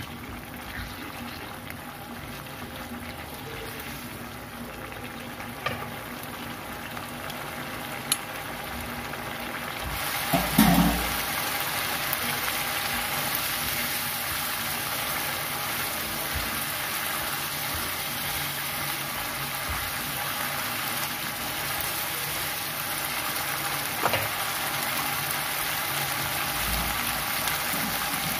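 Shrimp and petai in a thick spiced sauce simmering and sizzling in a frying pan while being stirred with a spatula. The bubbling gets louder about ten seconds in, with one loud knock then and a few sharp clicks here and there.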